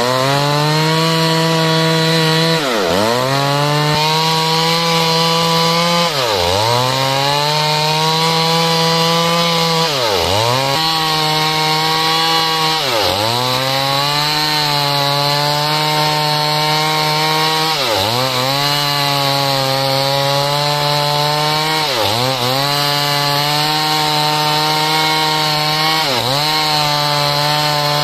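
Chainsaw running at full throttle while ripping timber lengthwise into rafters. The engine pitch drops sharply and climbs back about seven times, roughly every three to four seconds.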